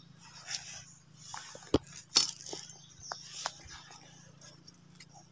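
Dry leaf litter being disturbed: a handful of short, sharp crackles and rustles, the loudest about two seconds in.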